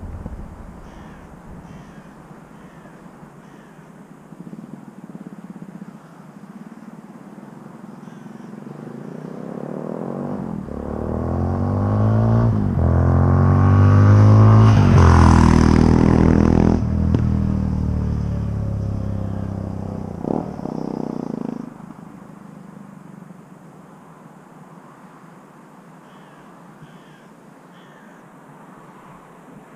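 Yamaha XT660X's single-cylinder engine through Leovince X3 exhausts as the motorcycle rides up, passes close and moves away. The exhaust note grows from about a third of the way in, is loudest just past the middle with its pitch bending, then fades and drops off suddenly about two-thirds through.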